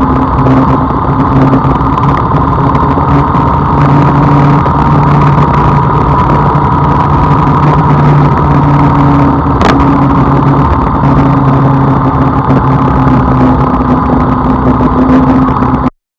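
A vehicle engine running steadily on the road with a constant droning hum, a single short click about ten seconds in, and the sound cutting off suddenly near the end.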